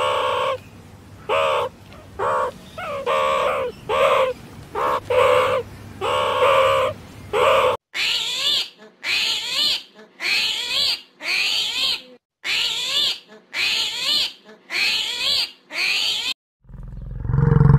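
Two runs of short, repeated animal calls, about two a second. The first run is lower. After a sudden cut, the second run is higher, and each call rises and falls in pitch. Near the end a tiger's deep roar swells in.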